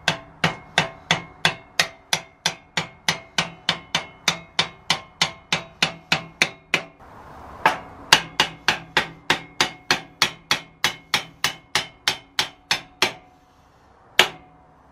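Hammer blows with a metallic ring, about three a second, driving a tight-fitting Yamaha XT125 swing arm and its pivot into place on the frame. The run pauses briefly about seven seconds in, picks up again, and ends with one last blow near the end.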